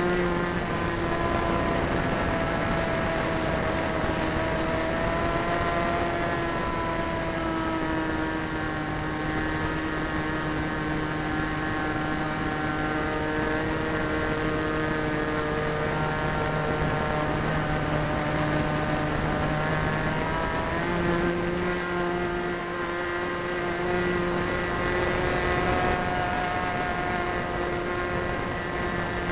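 Super Tigre .90 two-stroke glow engine of an Ugly Stick RC plane running steadily in flight, heard from a camera on the plane's tail over a rush of air. Its pitch sinks slowly through the first part and rises again about two-thirds of the way in.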